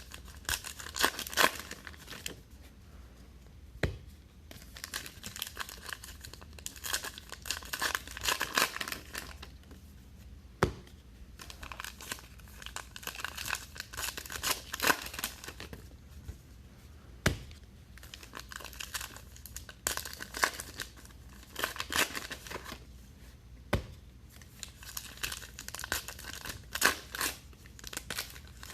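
Foil trading-card packs being torn open one after another, the wrappers crinkling as each is ripped and peeled. The ripping comes in a spell every six or seven seconds, with a single sharp tap in each pause.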